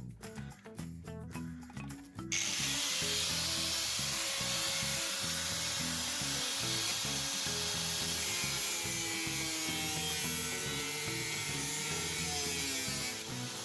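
Background music with a steady noisy power tool running over it; the tool starts about two seconds in and runs steadily to near the end.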